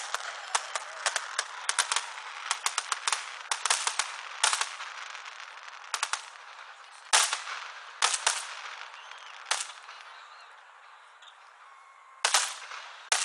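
Aerial fireworks exploding: a fast run of sharp pops and crackles for the first few seconds, then single loud bangs a second or so apart, thinning out towards the end.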